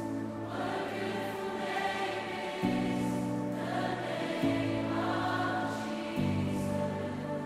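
Slow choral music: voices holding sustained chords over a low bass note, the chord changing about every two seconds.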